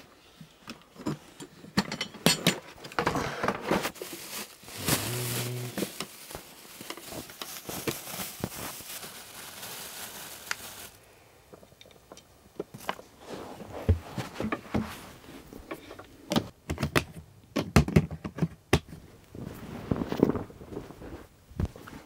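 Irregular clicks and knocks close by, with a long stretch of rustling noise in the first half.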